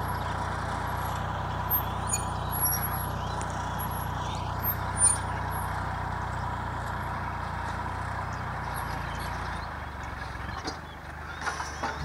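Kubota L3608 tractor's diesel engine running steadily under load while pulling a disc plough through the soil to throw up a paddy-field bund. It grows fainter about ten seconds in as the tractor moves away.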